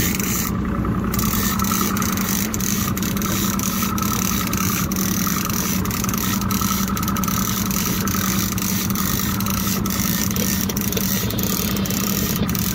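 Evinrude E-TEC 175 two-stroke outboard idling with a steady low hum.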